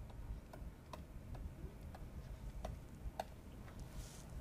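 Faint, irregular clicks of a stylus tapping on a tablet or pen display while handwriting a word, about one or two taps a second.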